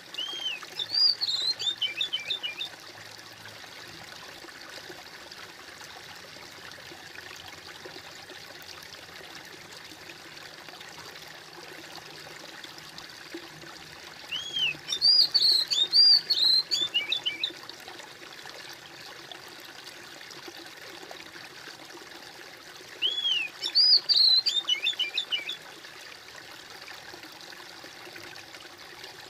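Water trickling steadily in a stream. Over it, a songbird sings three quick chirping phrases, louder than the water: at the start, about halfway through, and again some six seconds before the end.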